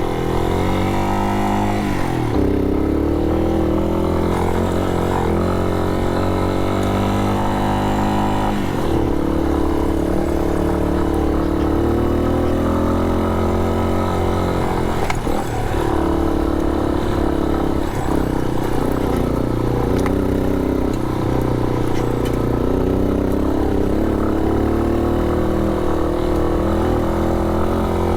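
Yamaha Serow 250's air-cooled single-cylinder engine running under way, its revs rising and dropping several times, about two, nine and fifteen seconds in.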